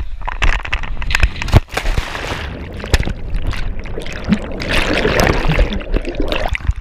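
Cliff jump into the sea with a GoPro: air buffeting the camera's microphone during the fall, a loud plunge into the water about a second and a half in, then the muffled rush and gurgle of bubbles with the camera underwater.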